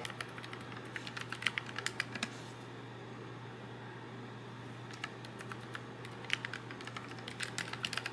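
Typing on a backlit computer keyboard: quick runs of key clicks, a pause of a couple of seconds in the middle, then more typing.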